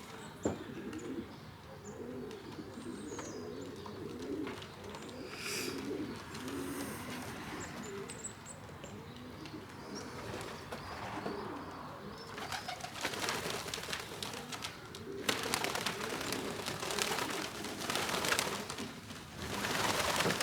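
Pigeons cooing steadily in low warbling calls around a racing-pigeon loft. From about twelve seconds in, long stretches of loud rushing noise join the cooing.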